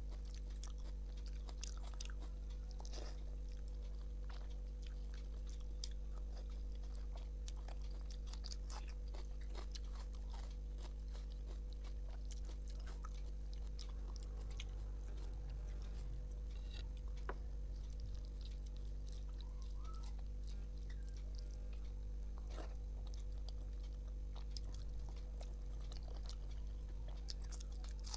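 A person eating rice, dal and curry with their fingers: soft chewing and mouth sounds with many small scattered clicks and crunches. A steady low hum runs underneath.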